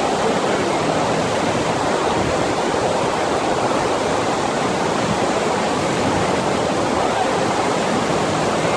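Steady rush of water pumped in a sheet over a FlowRider wave machine, running evenly without a break.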